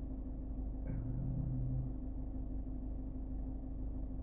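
Steady low rumble and hum with a constant tone, and a brief low tone about a second in that lasts about a second.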